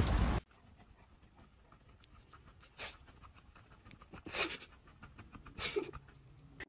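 German Shepherd dog giving three short breathy huffs, each falling in pitch, with quiet between them. A loud noisy sound cuts off abruptly in the first half-second.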